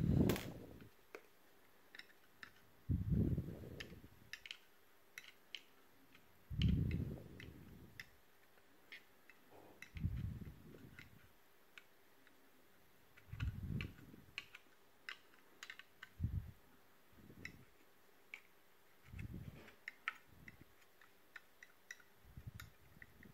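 Small scattered clicks and soft low rubbing sounds of hands working a rubber waterproof seal back into a sat-nav's plastic housing. The rubbing sounds come every few seconds.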